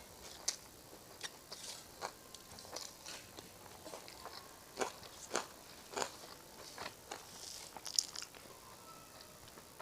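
Close-up eating sounds: a person chewing a mouthful of rice and curry, with irregular sharp crunches and small wet clicks.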